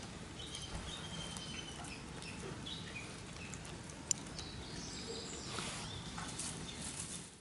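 Outdoor ambience: small birds chirping here and there over a steady background hiss, with a single sharp click about four seconds in.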